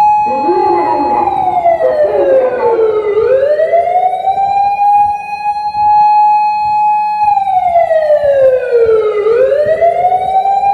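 Electronic siren from an Osaka Siren MK-10 siren amplifier (TSK-5101V) sounding a wail pattern: a loud held high tone that slides down and sweeps back up, twice.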